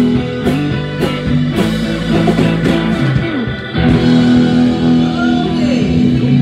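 Live rock band playing: electric guitar with bending notes over bass and drums. Drum and cymbal hits run through the first half, then after about three and a half seconds the band holds long notes.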